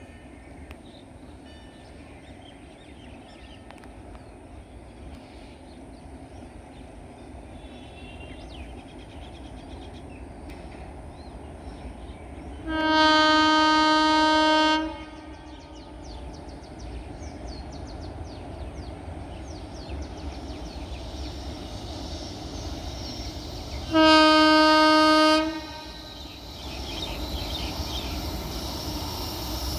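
Indian Railways WAP-7 electric locomotive's horn sounding two long blasts about eleven seconds apart, the first about two seconds long and the second a little shorter. Between them runs a steady rumble of the approaching train, growing louder near the end.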